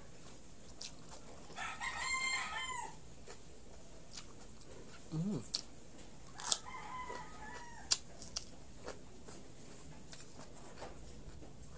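A rooster crows twice: about one and a half seconds in and again about six and a half seconds in, each crow about a second long. There are a few sharp clicks between them, the loudest about eight seconds in.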